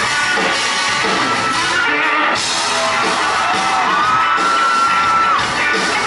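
Live rock band playing, with electric guitar, bass guitar and drums. About three and a half seconds in, a high note slides up and holds for over a second before dropping away.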